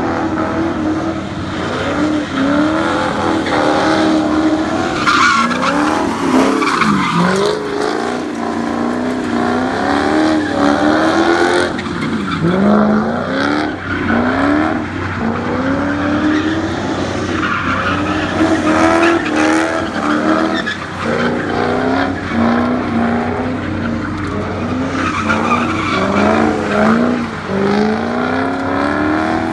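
A car drifting on wet asphalt, its engine revving up and dropping back again and again, with tyre skid noise under it.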